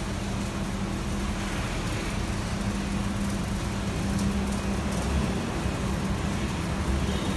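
Steady city street noise of road traffic, with a constant low hum running under it.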